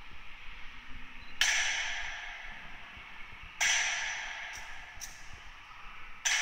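Three sharp strikes, about two seconds apart, each ringing out and dying away slowly in the echo of a bare concrete room, with two faint clicks between the second and third.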